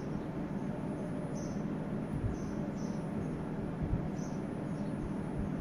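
Short high-pitched chirps repeating irregularly, roughly one or two a second, over a steady low rumble.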